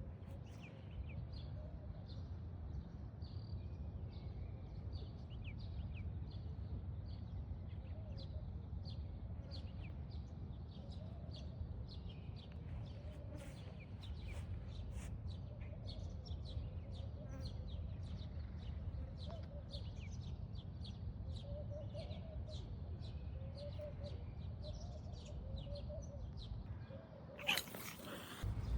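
Small birds chirping over and over above a steady low outdoor rumble, with fainter wavering calls lower down. A single sharp, loud noise comes near the end.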